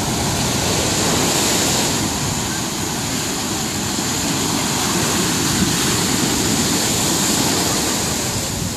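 Ocean surf breaking and washing up a sandy beach: a steady rushing of waves and foam.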